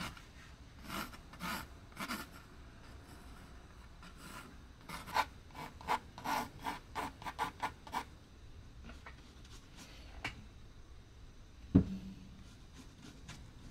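Pencil sketching on a stretched canvas: short scratchy strokes, a quick run of them in the middle, then a single dull knock near the end.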